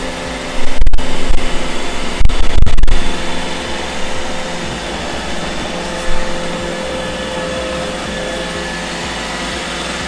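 iRobot Roomba e5 robot vacuum running, a steady whirring hum of its suction motor and brushes with a few held tones. Several loud low thumps fall in the first three seconds, and another about six seconds in.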